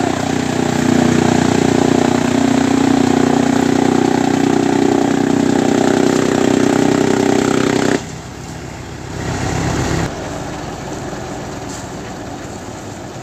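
Tractor-powered fodder chopper (chaff cutter with blower) running under load, a steady loud drone and whir as dry stalks are fed through it. About eight seconds in the sound drops suddenly, and a quieter steady engine-and-machine hum continues.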